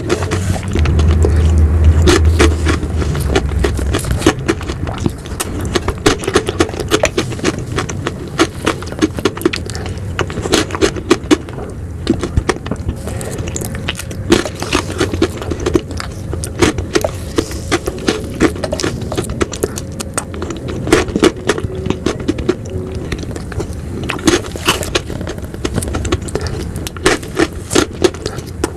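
Close-miked eating of ice cream: a dense, irregular run of wet mouth clicks and crackles. A louder low rumble sits under the first few seconds.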